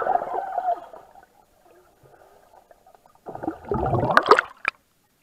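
Pool swimmers heard underwater through an action camera's waterproof case: muffled bubbling and splashing. It dies down after about a second, then a loud burst of splashing and bubbles comes near the end and stops abruptly.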